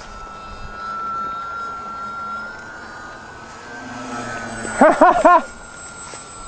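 Electric motors and propellers of a TwinStar twin-motor RC foam plane in flight, a steady high whine that rises a little in pitch and then eases off. About five seconds in, a person shouts excitedly in three quick bursts, the loudest sound.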